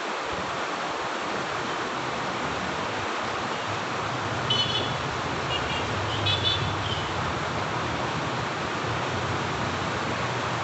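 Steady rush of a fast, shallow river flowing over rocks. Under it runs a low engine drone from a passing vehicle, and a few short high-pitched sounds come around the middle.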